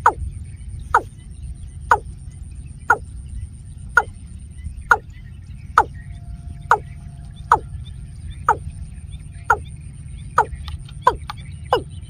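Watercock calls: short notes that fall in pitch, repeated about once a second and coming a little faster near the end.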